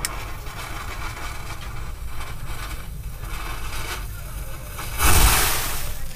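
Loose anar (fountain firecracker) gunpowder, lit with a lighter, fizzing and smoking, then about five seconds in flaring up with a sudden loud rushing hiss as it throws out sparks.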